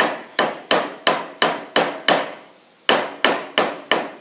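Hammer driving a nail in quick, even blows, about three a second, each strike ringing briefly. There is a short pause about two seconds in before the blows resume.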